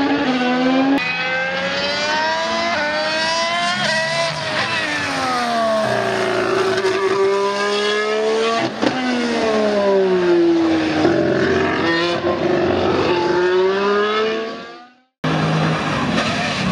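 2015 Formula One car's 1.6-litre turbocharged V6 engine at high revs. Its pitch jumps up in quick steps through gear changes, then falls and rises smoothly. The sound cuts off abruptly about fifteen seconds in, and another engine takes over.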